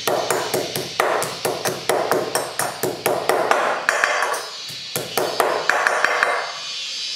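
Snail shells clattering against a stainless steel pot as they are stir-fried and turned with a metal spatula, in quick strokes about four a second, with the metal ringing. The stirring stops near the end, leaving a steady hiss.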